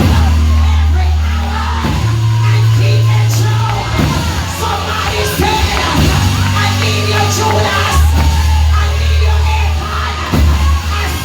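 Loud gospel-style music with a band's held bass notes that change every couple of seconds, and voices singing and shouting over it.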